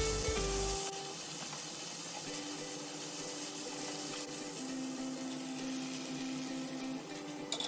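Food sizzling in a frying pan, loudest in the first second and then settling to a steadier, softer sizzle, under quiet background music. A couple of sharp clicks come near the end.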